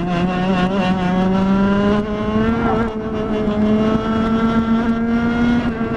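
Rotax two-stroke kart engine at full throttle, heard from onboard the kart, its steady high note climbing slowly in pitch as the kart gathers speed, with a brief wobble about halfway.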